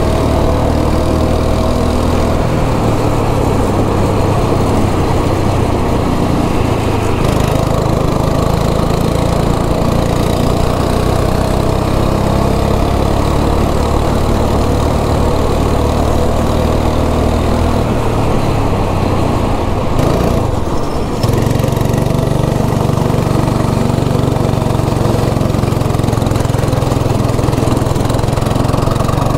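Go-kart's small single-cylinder engine running hard, heard close from the driver's seat. About twenty seconds in the revs drop briefly and then pick up again.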